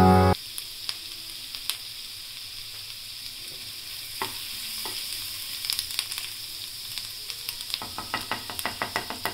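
Chopped garlic sizzling in hot oil in a nonstick frying pan, with a steady high hiss. A wooden spatula stirring it makes scattered light scrapes and taps against the pan, which come quicker near the end.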